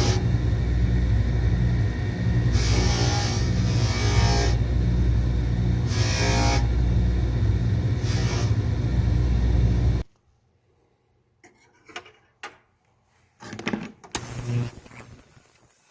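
A machine runs with a steady deep hum and recurring hissing surges, then cuts off suddenly about ten seconds in. A few clicks and knocks follow, and a higher-pitched motor whir starts near the end.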